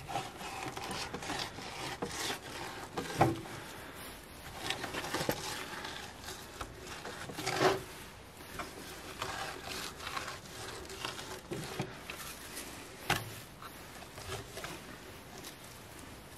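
Filleting knife scraping and sliding against a wooden cutting board as the skin is worked off a pike fillet, with a few sharper knocks on the board.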